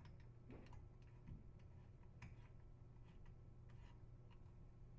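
Near silence: room tone with a low hum and a few faint, scattered clicks and taps.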